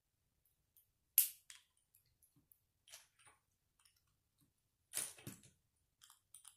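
Small plastic Lego pieces clicking and snapping as they are handled and pressed onto a Lego plate. There are a few sharp clicks, the loudest about a second in, and a quick cluster of clicks around five seconds in.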